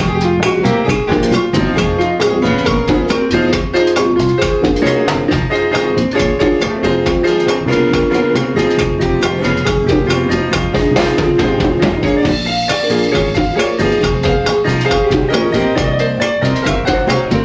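Latin jazz band playing live: drums and percussion keep a quick, steady beat under pitched melodic parts.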